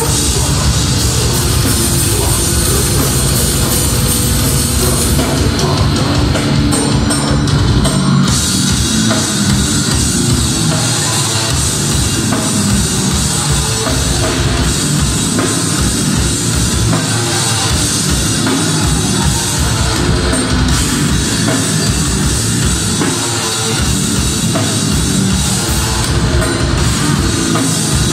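A heavy metal band playing live and loud, with a drum kit and distorted electric guitars.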